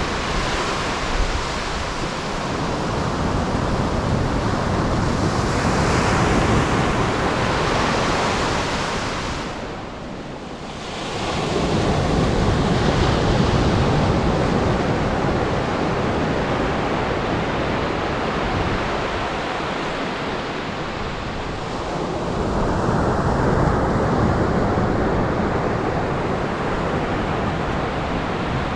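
Atlantic surf breaking and washing up the beach, a steady rush that swells and eases every several seconds and drops away briefly about ten seconds in, with wind buffeting the microphone.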